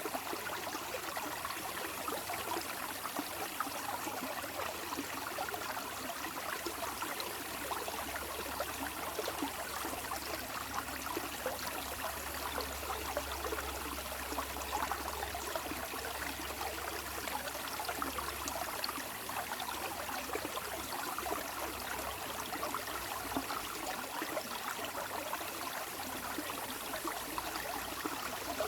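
Running water of a stream, a steady babble of small splashes and trickles.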